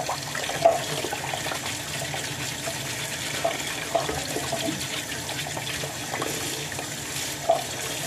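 Water running into a sink full of live hairy crabs tied with string, as the crabs are handled and scrubbed with a brush. A few short knocks of shell against the sink.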